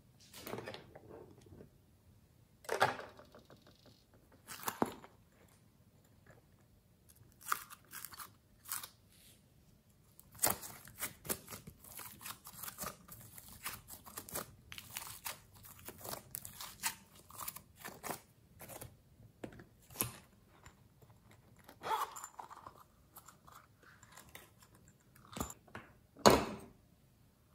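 Slime being kneaded, stretched and pressed by hand, giving irregular sticky crackles and pops: sparse at first, then a dense run of them, with one louder smack near the end.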